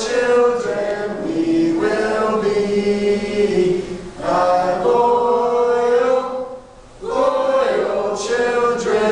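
A group of voices chanting a camp song together, in sung phrases with held notes and a short pause about two-thirds of the way through.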